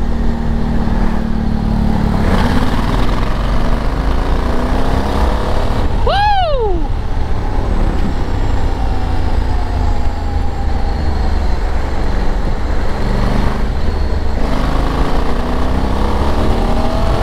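Honda Africa Twin 1084 cc parallel-twin engine pulling under acceleration, its note rising and dipping as the DCT automatic gearbox shifts, under heavy wind rumble on the camera microphone. A short tone rises and then falls about six seconds in.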